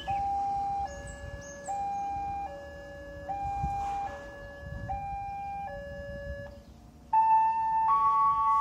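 Railway level-crossing warning alarm sounding a steady alternating two-tone, high and low notes of just under a second each, which warns that a train is approaching and the barriers are closing. About seven seconds in it gives way to a louder chime of several notes.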